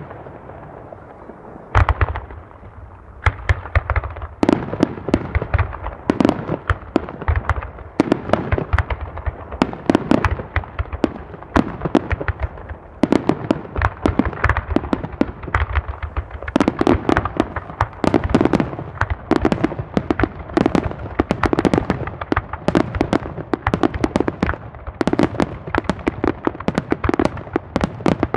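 Fireworks display: a barrage of aerial shells going off in rapid succession, with sharp bangs coming several a second. There is a short lull at the start, and the bangs grow densest in the second half.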